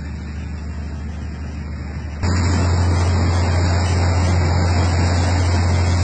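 A riverboat's engine running with a steady low drone under a rushing noise. Both grow suddenly louder about two seconds in.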